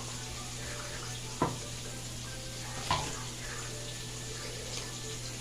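Water running steadily from a kitchen tap into the sink, with two light knocks of dishes about a second and a half and three seconds in.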